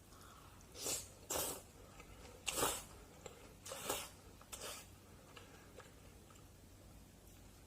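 Close-miked eating of somyeon noodles in jjajang sauce: about five short, wet slurps and mouth noises in the first five seconds, then only faint background.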